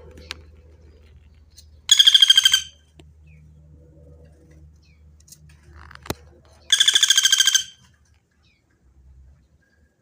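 Pelatuk bawang woodpecker calling: two loud, rapid rattling trills, each just under a second long, about five seconds apart.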